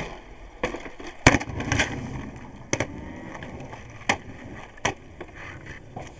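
Skateboard wheels rolling on concrete, with a string of sharp clacks as the board pops and lands, about seven in all, the loudest a little over a second in.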